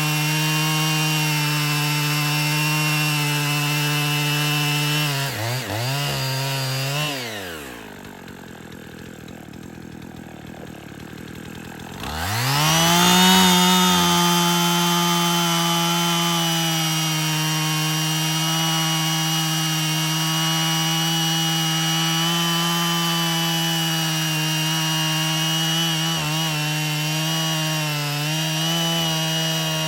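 Husqvarna 55 two-stroke chainsaw running at high revs, most likely cutting through wood. About six seconds in the throttle is let off and the engine falls to a low idle. Around twelve seconds it revs sharply back up and holds high until the revs drop again at the end. It runs smoothly after a new pull cord.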